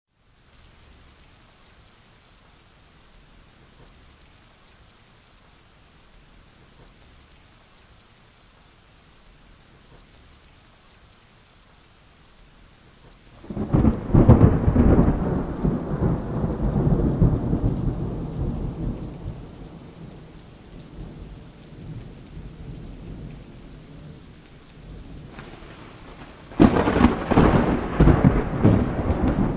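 Recorded thunderstorm played over a theatre's sound system: a faint steady hiss of rain, then about halfway through a sudden loud thunderclap that rolls and fades over several seconds. A second thunderclap comes near the end.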